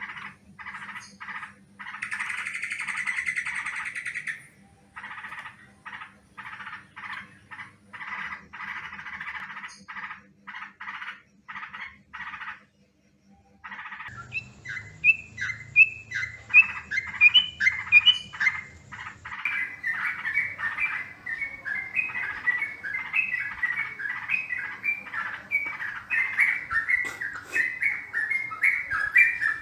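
Yellow-vented bulbul (trucukan) calling: a run of short, harsh chattering call bursts, then, after a brief pause about halfway, a fast, bubbly series of whistled song notes that grows louder, a lure recording used to draw wild bulbuls in.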